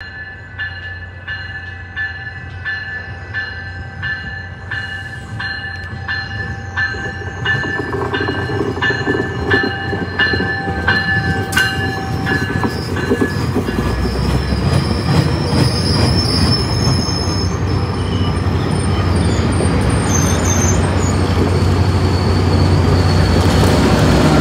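A warning bell rings about two to three strikes a second for the first twelve seconds as a Tri-Rail double-deck commuter train rolls in. The rumble of the passing cars on the rails then builds steadily, with the diesel locomotive at the rear loudest as it passes close near the end.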